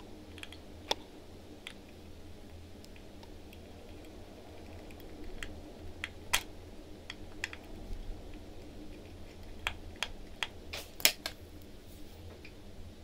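Small, sharp, irregular clicks of a fine watchmaker's screwdriver working the screws that hold down the automatic works of a Rolex 2135 movement, with a few louder clicks about six seconds in and near the end, over a faint steady low hum.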